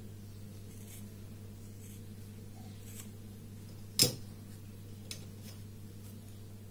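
Scissors cutting a piece of card: a few faint snips and clicks, and one sharp, loud snip about four seconds in. A steady low hum runs underneath.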